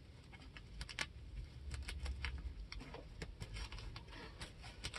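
Faint handling noises: scattered small clicks and rustles as gloved hands work the fabric snow cab's fittings on the tractor frame.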